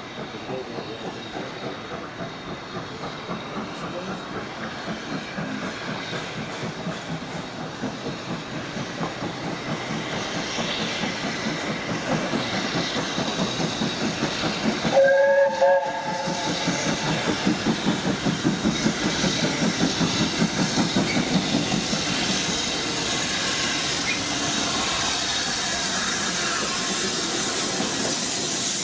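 BR Standard Class 7 Pacific No. 70000 'Britannia', a two-cylinder steam locomotive, working a train with rhythmic exhaust beats that grow steadily louder as it approaches. About halfway through it gives a short whistle blast of about a second. Then come louder exhaust beats and the steady noise of the passing train.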